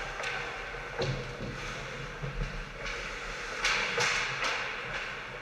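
Ice hockey skate blades scraping and hissing on the ice, with several louder scrapes a little past halfway and a sharp knock about a second in, over a steady low hum.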